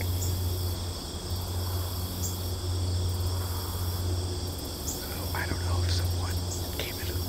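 Steady, high-pitched chorus of crickets and other insects, over a low steady rumble.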